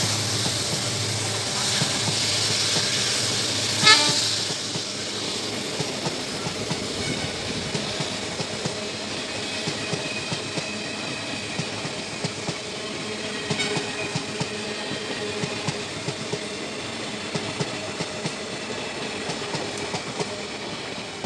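Passenger express coaches rolling past on the adjacent track: a steady rumble with the clickety-clack of wheels over rail joints, and one sharp louder clank about four seconds in. The sound slowly fades as the train draws away.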